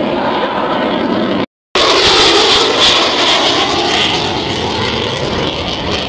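Jet noise from an F-22 Raptor's twin Pratt & Whitney F119 turbofans as it flies past overhead. The sound drops out completely for a split second about one and a half seconds in, then comes back as a strong roar whose pitch falls slowly.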